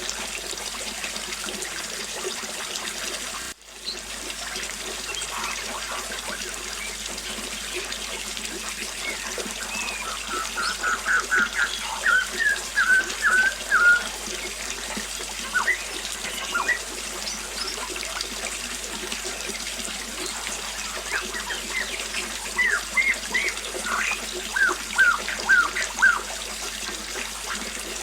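Small waterfall splashing steadily, with birds calling over it: a quick run of repeated chirps around the middle and another string of short calls near the end. The sound briefly drops out about three and a half seconds in.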